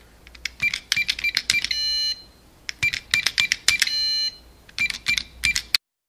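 Intro sound effect: quick runs of clicks, each run ending in a bell-like ding about half a second long. This happens twice, then a last run of clicks cuts off suddenly near the end.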